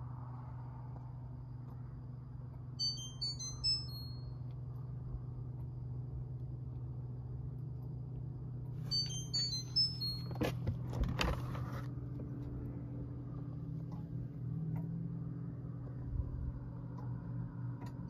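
Whirlpool WRF993F French-door refrigerator sounding its alarm: two short runs of high electronic beeps at several pitches, about three and nine seconds in, over a steady low hum. This is the alarm of a fresh-food section that is not staying cold enough, a fault the repairer traced to a bad thermistor. Some clunks and knocks about ten to twelve seconds in as the door is handled and opened.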